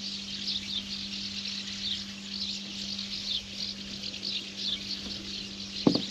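Dense, continuous chirping high in pitch, over a steady low hum, with a brief thud near the end.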